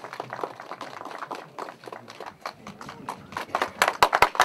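Scattered hand clapping from a small group, the claps irregular and quick, with a few louder sharp claps about four seconds in; faint voices underneath.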